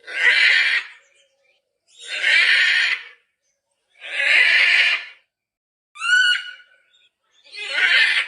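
Macaw squawking: harsh, loud screeches about a second long, repeated roughly every two seconds, with one shorter, more whistle-like call about six seconds in.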